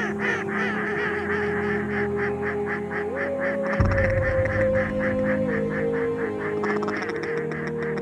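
Greylag goose honks in a rapid, steady run of about four calls a second, over a music track of long held notes that shift in pitch now and then. A deeper bass part of the music comes in about four seconds in.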